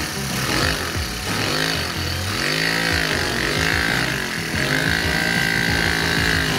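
Lego vacuum engine running, its piston and spinning flywheel making a continuous mechanical clatter, with background music.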